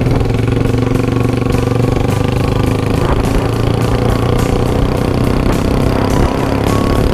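Loud distorted rock music: a sustained low chord held throughout, with cymbal or hi-hat hits about twice a second.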